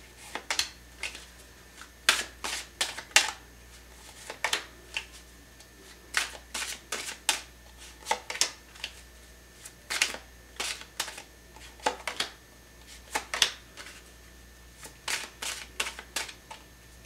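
Tarot cards being drawn one at a time from a hand-held deck and laid down in an overlapping row: crisp card clicks and slides in small irregular clusters, with short quiet gaps between.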